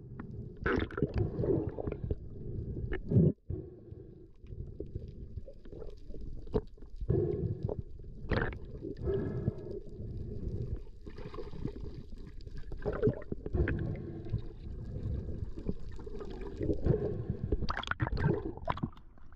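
Muffled water gurgling and sloshing around a diver's action camera in its waterproof housing, with scattered knocks.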